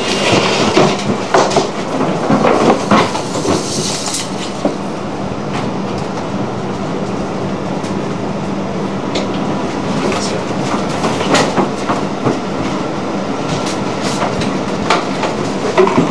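Rattling and clattering on a cable ship's bridge as the ship rolls heavily in a storm, with many short knocks over a steady low machinery hum.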